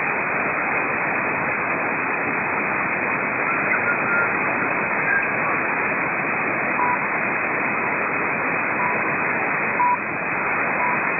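Shortwave receiver static: a steady hiss of band noise on a narrow AM channel in the 31 m band, with no station readable. A few short faint whistle tones come and go, mostly in the second half.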